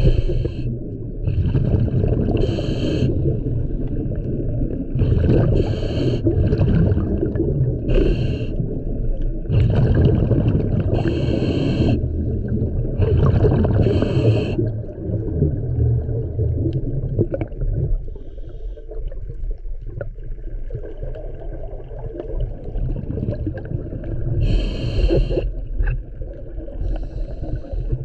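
Scuba diver breathing through a regulator underwater: a short hiss with each inhalation every two to three seconds, over a low rumble of exhaled bubbles and water. The breaths pause for several seconds past the middle, with one more near the end.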